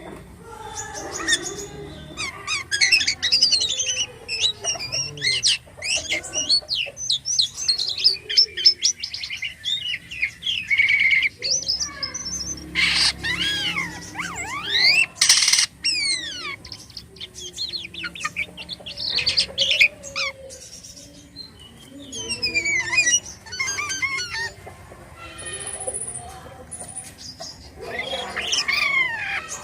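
A jalak kapas starling singing a long, varied song of rapid chirps, whistles and sweeping notes in bouts with short pauses, full of mimicked calls of other birds.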